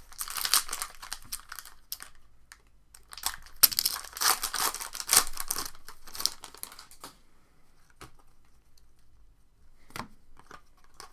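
A trading-card pack's foil wrapper being torn open and crinkled, in two spells of dense crackling over the first seven seconds. A few faint clicks follow.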